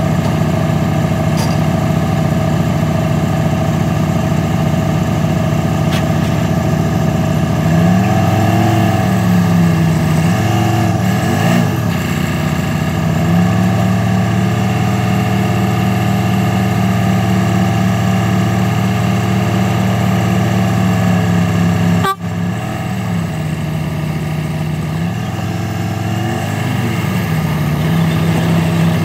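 Diesel engine of a log truck running, its revs rising and falling several times and holding steady at a higher speed for several seconds in the middle. The sound cuts out for an instant about two-thirds through.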